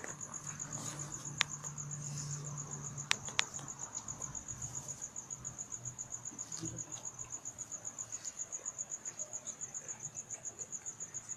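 Crickets chirping in a steady, high-pitched pulsing trill, about seven pulses a second, with two or three sharp clicks in the first few seconds.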